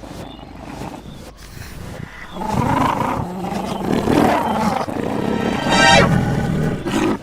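Cartoon big-cat roar sound effects, lion or tiger, over background music. They grow louder about two and a half seconds in, and the loudest call comes about six seconds in.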